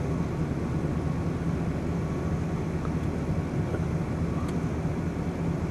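Steady low engine hum with a rumble underneath, unchanging throughout.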